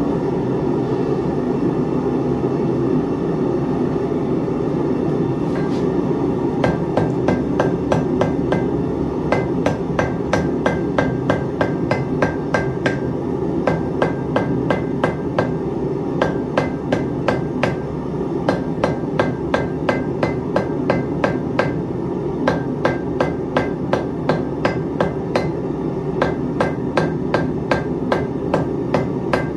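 Hand hammer striking red-hot steel on an anvil, forge-welding steel stems together. The blows start about six seconds in and come steadily at two to three a second, each with a short ring, with a few brief pauses. A steady rushing noise runs underneath.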